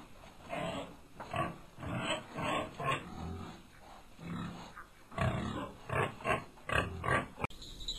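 A farm animal calling in a quick run of short, repeated calls, several a second, which cuts off abruptly near the end.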